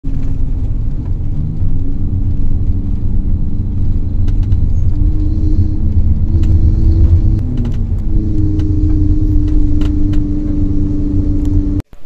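Cabin noise of a moving car: a loud low rumble of engine and road, with a drone that shifts in pitch a few times and scattered light clicks. It cuts off suddenly just before the end.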